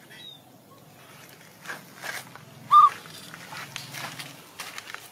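A baby monkey gives one short, high call about three seconds in, with faint rustling around it.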